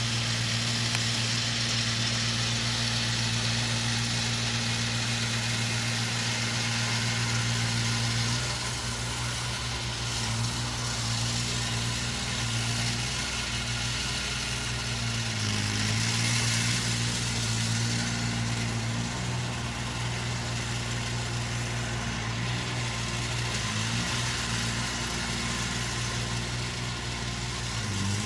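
Engine of a large compost-spreading machine running steadily under a wash of mechanical noise, its low drone easing off and wavering about a third of the way in, then rising and shifting again a few times.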